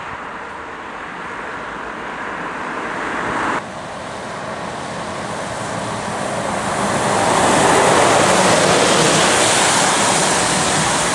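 Scania articulated lorry pulling a biomass trailer, driving past close by on a wet road: engine running and tyres hissing on the wet surface, swelling to its loudest about eight seconds in and easing as it moves away. Before that, steady road and wind noise that breaks off suddenly about three and a half seconds in.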